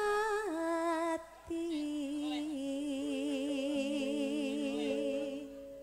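A woman singing a Javanese langgam campursari melody through a microphone. Her line steps downward and settles into a long held note with wide vibrato, while steady keyboard notes are held underneath in the second half.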